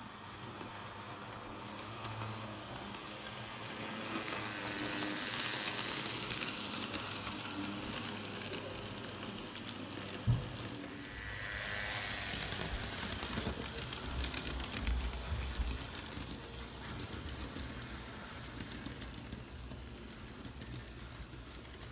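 Model train running on the layout track: a hissing, clicking rattle of wheels and motor that swells twice as it passes close and fades away, with one sharp click about ten seconds in.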